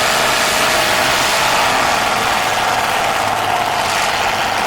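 Demolition derby cars' engines running steadily, with no sharp crashes.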